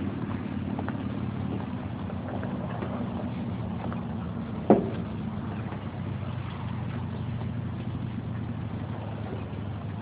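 Steady low mechanical hum, with one sharp knock about halfway through.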